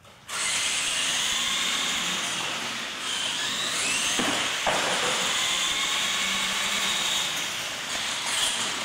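Radio-controlled monster trucks racing on a concrete floor: a high whine of motors and gears over a steady rush of tyre noise, starting suddenly just after the start, with two short knocks about four seconds in.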